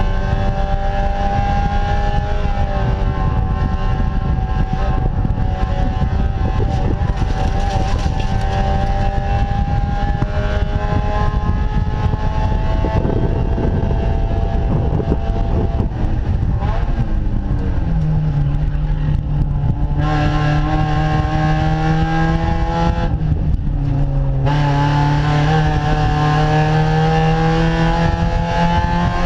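Spec Miata (Mazda MX-5) race car's four-cylinder engine heard from inside the cockpit at high revs, pitch climbing steadily under full throttle. It shifts up once early on a brief dip in pitch, pulls for a long stretch, then the revs fall for a couple of seconds off the throttle before climbing hard again, with another upshift near the end.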